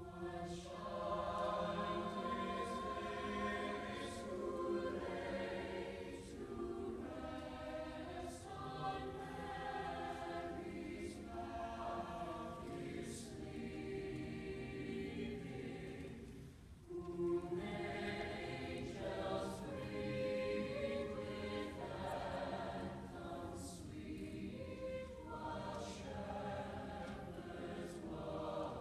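A mixed choir of men's and women's voices singing in long held phrases, with a short break about 17 seconds in before the next phrase begins.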